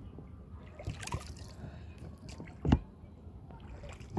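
Water sloshing and splashing against an inflatable rowing boat, with scattered small knocks and one loud thump about two and a half seconds in.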